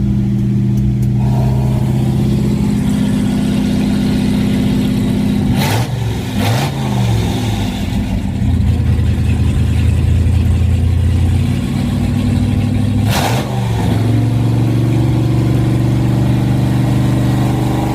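1971 Chevrolet C10's 454 big-block V8 idling through an exhaust fitted with a QTP electric cutout. About six seconds in, after a brief transition, the idle turns deeper and louder, then drops back to its quieter tone about thirteen seconds in, as the cutout is opened and then closed.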